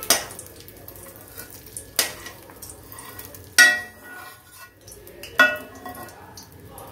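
Perforated steel ladle scraping and knocking against a small steel kadai while ghee-fried cashews are tipped out into the payasam. Four sharp metallic clanks, the loudest about three and a half seconds in, the last two ringing briefly.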